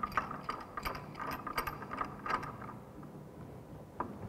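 Pipe wrench tightening a steel pipe union: quick metallic clicks and scrapes of the wrench jaws on the union nut, which thin out about two and a half seconds in, with one more sharp click near the end.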